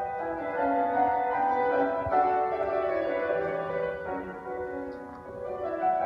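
A grand piano played solo: a melody of held notes that briefly softens about five seconds in.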